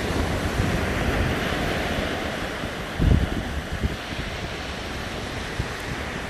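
Surf washing onto the beach, with wind rumbling on the microphone and one louder low thump about three seconds in.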